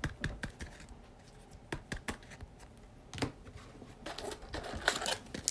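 Trading cards and packs being handled by hand: scattered light clicks and soft rustles. Near the end, a hand reaches into the cardboard retail box to pull out a card pack.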